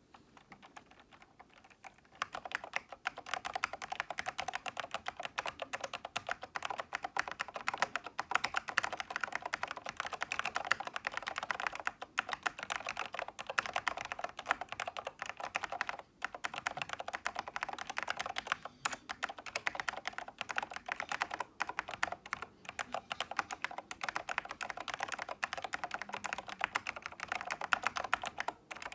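Toshiba UE0222P04 keyboard (an OEM Dell 'Big Foot') with Alps SKCM white switches being typed on fast and continuously from about two seconds in, with a couple of short pauses. The letter keys have probably been modified to remove their click.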